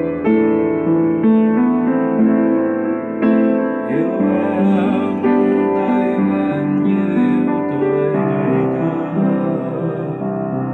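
Piano played with both hands: held chords under a melody line, an instrumental passage between sung verses.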